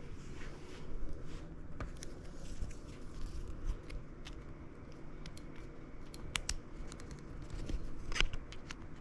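Long nylon zip tie being handled and threaded through to lock a front brake lever: scattered small plastic clicks and rustles, with a few sharper clicks near the end.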